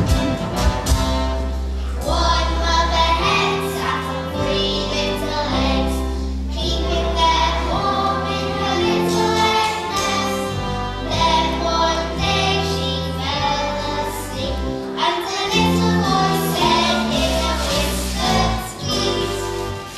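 A group of children singing a song together over instrumental accompaniment with a steady bass line.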